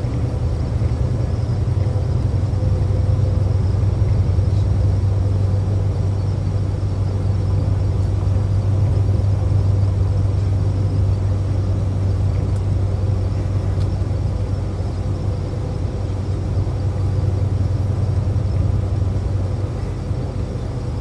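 A car driving along a road, heard from inside: a steady low rumble of engine and tyre noise.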